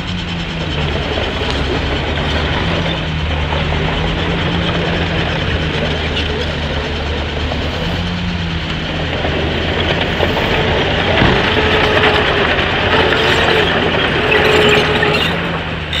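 Crawler bulldozer's diesel engine running under load with steady metallic clanking from its tracks. It grows louder from about ten seconds in.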